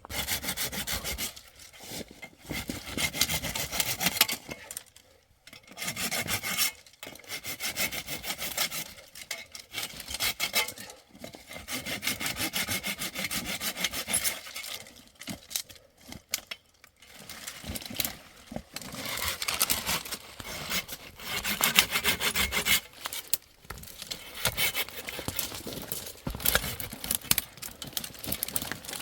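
Saw cutting through wood by hand: bouts of rapid back-and-forth strokes with short pauses between them.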